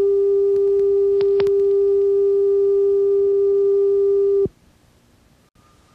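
Steady reference tone recorded on the head of a broadcast videotape over the slate, a line-up signal for setting audio levels. It cuts off suddenly about four and a half seconds in, leaving faint tape hiss.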